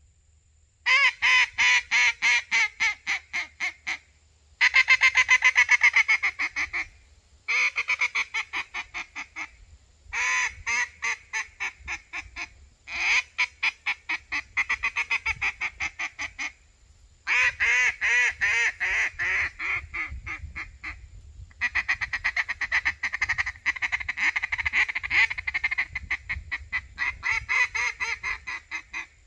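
Rich-N-Tone (RNT) Micro Hen duck call blown in strings of rapid, reedy quacks, each string starting loud and tapering off. Near the end comes a longer, faster, even run of chatter.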